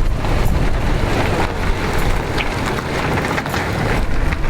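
Wind buffeting the microphone: a loud, steady rumbling rush with no clear tone or rhythm.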